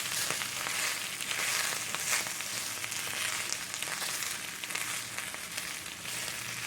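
Cabbage and sausage sizzling and crackling in a hot cast-iron skillet, with scattered light scrapes of the food being stirred around the pan.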